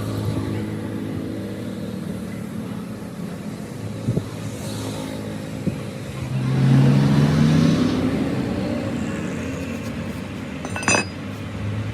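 A motor vehicle engine running, getting louder and rising in pitch a little past the middle before fading again. There are a few light knocks, and a short sharp clatter near the end.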